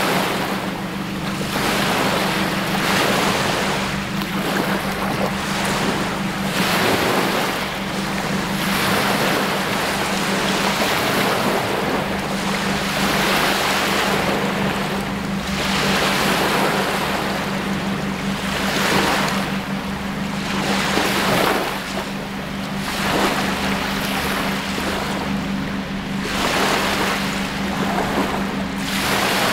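Small lake waves lapping and washing up onto a sandy shore, swelling and fading every second or two, over a steady low hum.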